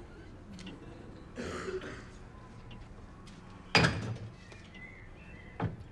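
A brief rustle, then a sharp loud bang about four seconds in, like a door or object knocking shut, and a smaller knock near the end.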